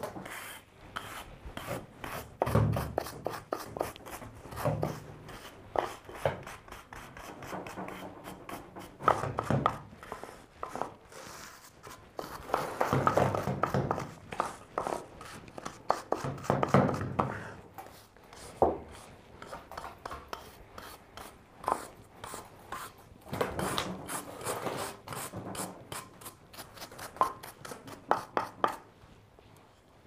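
Irregular rubbing and scraping handling sounds in clusters of a second or so, with a few sharp clicks and knocks.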